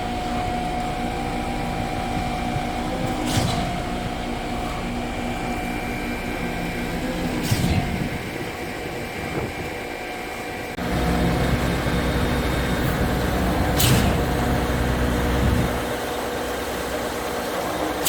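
Truck-mounted concrete pump running: a steady engine drone with a sharp knock every four to six seconds. The running gets louder and deeper from about eleven seconds in and eases back about five seconds later.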